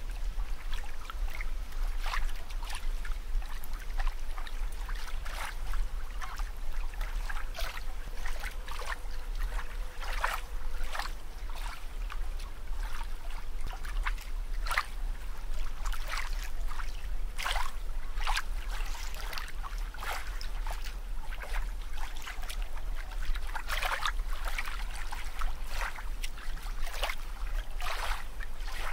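Water sound effect: irregular bubbling and splashing blips over a steady low rumble.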